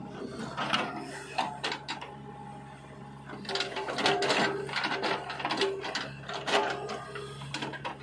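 A JCB 3DX backhoe loader's diesel engine running with a steady low hum under hydraulic load. Clusters of clattering knocks come from the soil and the bucket, first about half a second in and again from about halfway through, as earth is tipped into a tractor trolley and the bucket digs again.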